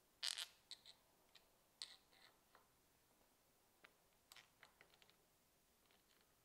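Scattered light clicks and rattles of a handlebar phone mount's plastic ball-joint arm and clamp being handled and fitted to an electric scooter handlebar, the loudest cluster just after the start and a run of smaller clicks later on.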